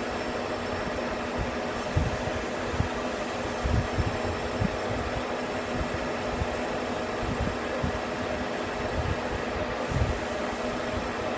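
Metal lathe running steadily, its spindle and gearing giving a steady hum with a few held tones, with occasional short low knocks.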